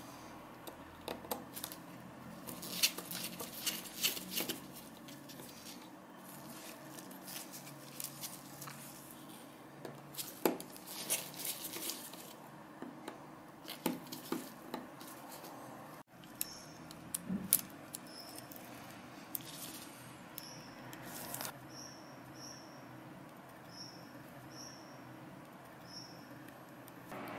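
Small clicks, taps and scratches of metal tweezers prying at the plastic lens unit and flex cables of a Canon PowerShot A490 compact camera as it is taken apart, coming in irregular clusters. In the last third, a string of short, high chirps.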